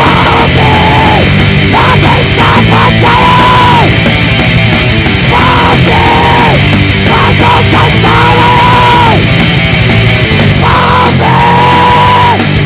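Heavy metal band playing: distorted guitars and drums under a high melody line held in long notes of about a second each, repeated several times.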